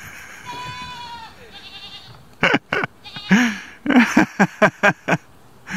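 Goats bleating: a few faint wavering calls, then from about halfway a rapid run of loud, short bleats.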